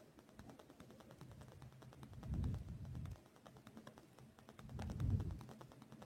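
Faint handling sounds of hand needlework with needle and thread: light rapid clicking, with two soft low thumps about two and five seconds in.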